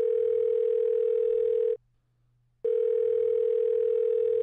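Telephone ringback tone heard down a phone line: two long, steady tones of about two seconds each with a short break between, as an outgoing call rings.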